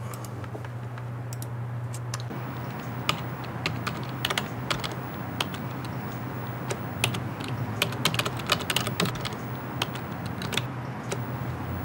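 Typing on a computer keyboard: irregular runs of keystroke clicks, thickest in the second half.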